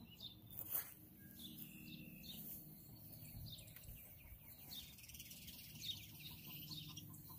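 Faint birds calling in the distance, with a few soft knocks.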